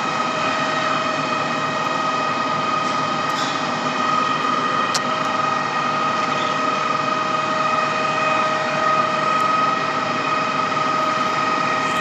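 Truck-mounted concrete pump's engine and hydraulics running steadily with a constant high whine while its 52-metre boom is folded up. A single sharp click about five seconds in.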